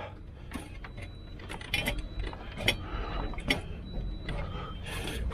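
Loose scrap metal (rusty iron rods, tin lids, an enamel pot) knocking and clinking together in a crate as it is handled, a string of sharp irregular metallic clicks and knocks.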